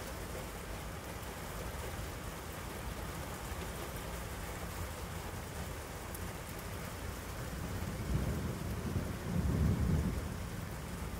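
Steady rain falling during a thunderstorm. About eight seconds in, a low rumble of distant thunder swells, peaks a second or two later, then fades.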